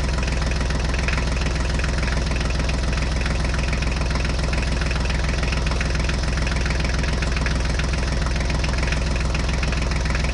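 An engine idling steadily with a fast, even knock.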